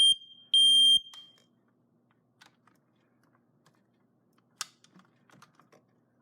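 A 9-volt battery smoke detector's alarm sounds during a test with loud, high-pitched beeps in the three-beep alarm pattern. The tail of one beep comes at the start and the last beep of the set about half a second later, then the alarm stops. A few faint clicks follow, with one sharp click about four and a half seconds in.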